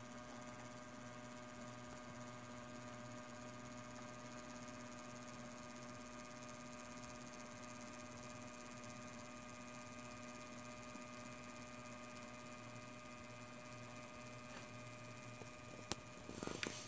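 Steady faint electrical hum made of several unchanging tones, with one sharp click about a second before the end, followed by brief rustling.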